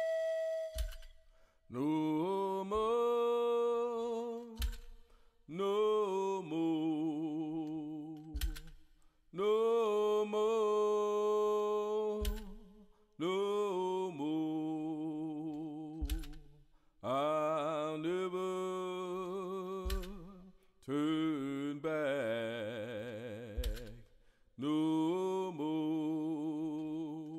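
Unaccompanied singing: a voice holding long phrases with vibrato, each a few seconds long, with short breaks and a few sharp knocks between them.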